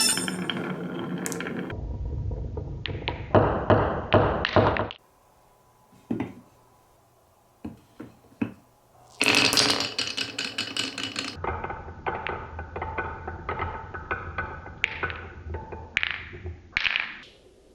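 Glass marbles rolling and clattering down wooden marble-run tracks: runs of rolling rumble mixed with many clicks and clacks. A pause with only a few single clicks comes about five seconds in, then a dense burst of clatter about nine seconds in, and near the end several strikes that ring briefly.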